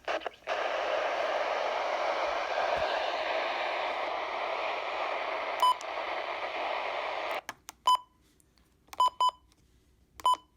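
Radio static: a steady hiss lasting about seven seconds, with a click near the end, that cuts off abruptly. It is followed by a string of short electronic beeps at irregular intervals.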